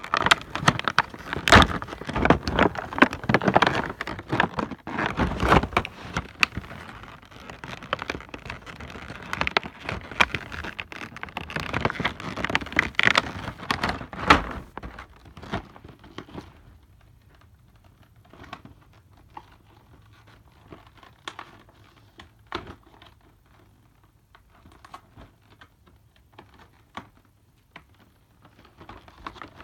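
Sellotape being peeled off a model aircraft box and the cardboard and plastic packaging being handled, a dense run of crackling, crinkling and tearing for about the first half, then only scattered quieter clicks and rustles.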